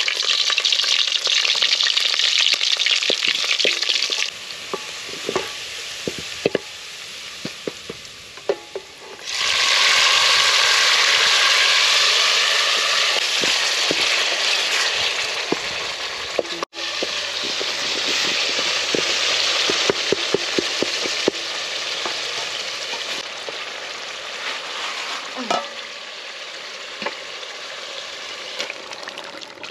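Chopped onions and tomatoes sizzling and frying in hot cooking oil in a metal pot, stirred with a wooden spoon that knocks against the pot now and then. The sizzle surges suddenly about nine seconds in, when the chopped tomatoes go into the hot oil, and then slowly dies down.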